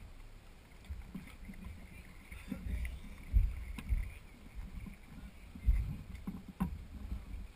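A racing canoe on the water, heard from on board: water noise with irregular low thumps and a few sharp knocks from the hull and paddles.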